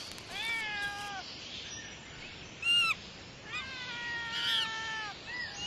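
Animal calls. A cry that rises and then falls starts just after the beginning, a short high call comes near the middle, and a longer falling cry follows.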